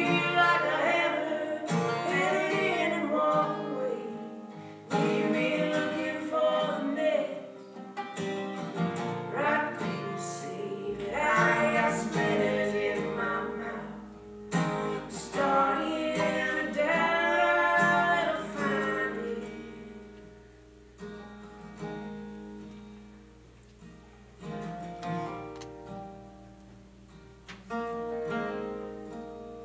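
A man and a woman sing with two acoustic guitars. About two-thirds of the way through the singing stops, and the guitars play on alone, more quietly.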